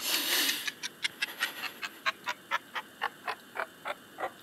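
A man panting in quick, short, rhythmic breaths, after one long breathy breath at the start. The breaths slow from about five a second to about three a second.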